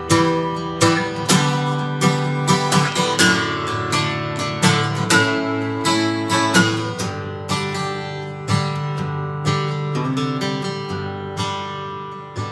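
Steel-string acoustic guitar strummed in chords, playing a song's instrumental introduction. The strokes come thick at first and thin out to sparser strums in the second half.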